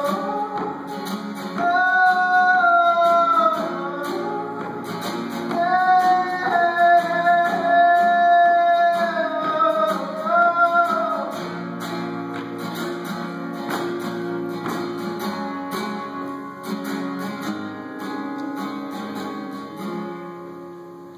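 A man singing over a strummed acoustic guitar. The voice stops about eleven seconds in, and the guitar plays on alone, slowly fading out.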